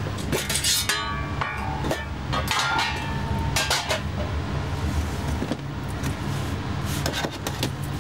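A few sharp clinks and clatters with a brief metallic ring, mostly in the first half, over a steady low hum.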